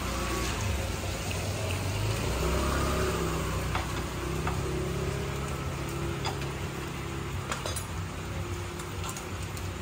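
A motorcycle engine idling steadily, with a low hum, hiss and a few scattered light clicks.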